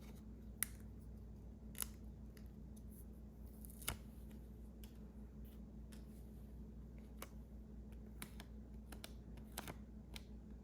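Scattered light clicks and taps, close to the microphone, from small objects being handled during puzzle solving with pen and paper. They come at uneven intervals over a steady low hum.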